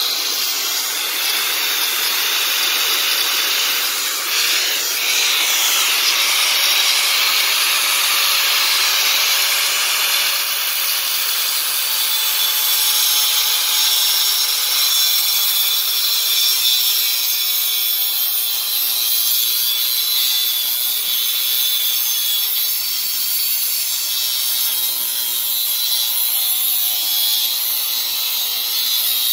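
Angle grinder cutting continuously into the metal housing of a combined fuel pressure regulator and fuel filter: a loud, steady grinding hiss, with a whine that wavers in pitch through the second half.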